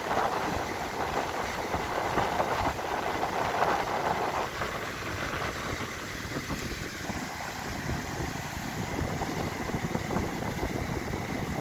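Gusty wind buffeting the microphone over the steady wash of surf breaking on the shore.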